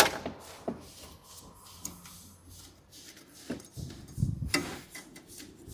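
A sharp plastic click as an electrical connector is unclipped on the engine's coolant housing, then scattered small clicks and the rubbing of gloved hands working among the hoses and connectors, heaviest about four seconds in.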